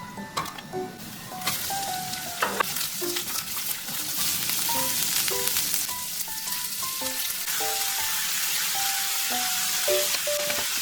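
Food sizzling in a frying pan, a steady hiss that sets in about a second and a half in, with a few light knocks near the start. Light background music of short plucked notes plays throughout.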